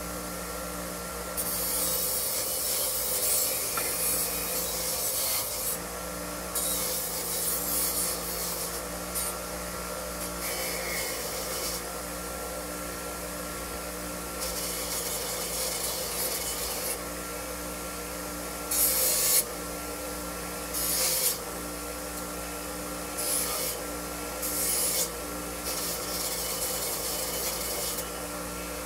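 Rust being scrubbed off a metal part in stop-start bursts of rapid, rasping rubbing, each lasting a second to several seconds. A steady background hum runs underneath.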